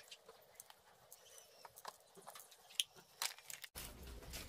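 Faint, scattered clicks of glass marbles being handled and loaded into a homemade PVC marble gun, with a couple of sharper clicks past the middle. Near the end the background changes abruptly to a low steady hum.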